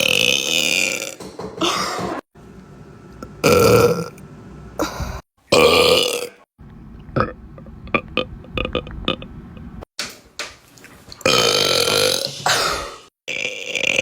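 A run of loud belches from several young women, one after another, some short and some drawn out for over a second, separated by abrupt cuts. A few small clicks come between them around the middle.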